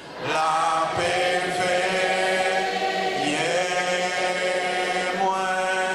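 Slow hymn singing in long held notes, a man's voice leading over the microphone, with brief breaks between phrases.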